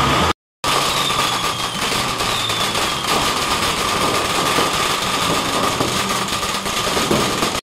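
Firecrackers going off in rapid, continuous crackling and popping, starting just under a second in.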